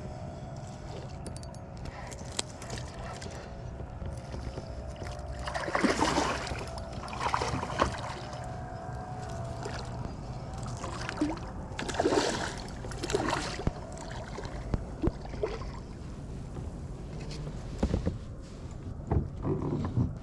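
Water sloshing and splashing against a fishing kayak, with irregular knocks and rustles from handling on board.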